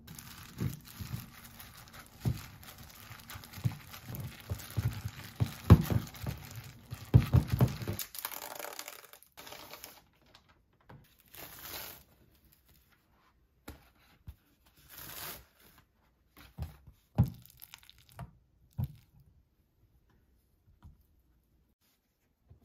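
Minced pork filling being mixed with chopsticks in a stainless steel bowl: about eight seconds of dense stirring noise with repeated knocks against the bowl. After that, a few short rustles and light taps as thin spring roll wrappers are peeled apart and laid on a cutting board, then near quiet.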